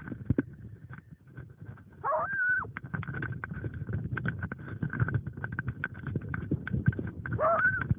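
American foxhound giving tongue twice while running: two long bays that rise and then hold their pitch, heard up close from a camera on its collar. Between and under them comes the constant rustle and knock of the dog pushing through undergrowth, with a faint steady high tone behind. A hound baying like this is running a track.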